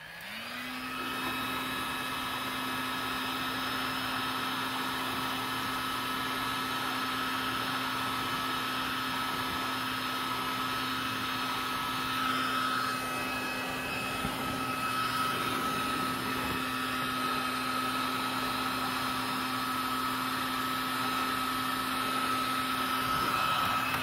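Handheld electric heat gun switched on and running steadily, its fan motor blowing with a steady hum and a high whine, as it heats shrink tubing over a soldered wire splice.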